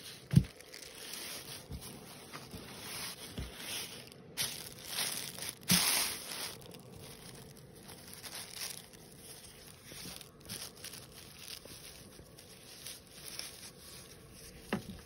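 A mesh basketball jersey and a plastic bag being handled close to the microphone: rustling and crinkling, with a sharp knock about half a second in, a louder stretch of crinkling around six seconds, and a smaller knock near the end.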